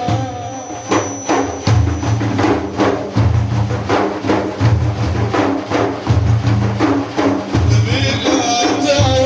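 Instrumental break in Arabic madih music: a steady drum rhythm of several strikes a second, with a deep low beat about once a second.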